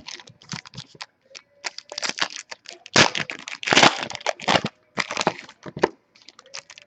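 Trading-card packaging being handled and opened: plastic wrapper crinkling and crackling in irregular flurries, with short pauses between.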